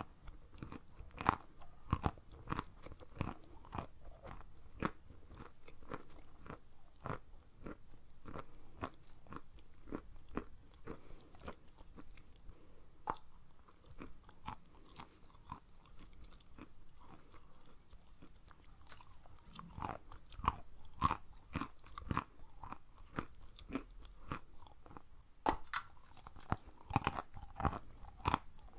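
Close-miked chewing and dull crunching of crumbly white chunks, irregular crunches in quick succession. The crunching thins out about halfway through, then fresh bites come thick again for the last third.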